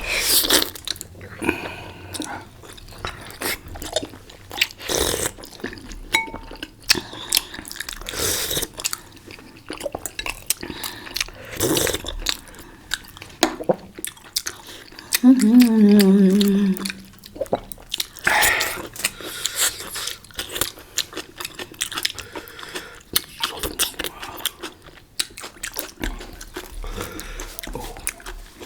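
Close-up eating of momos (Nepali dumplings): chewing and biting with many short crunches and clicks, and the clink of cutlery and plates. About halfway through, a short hummed vocal sound falling in pitch rises above the chewing.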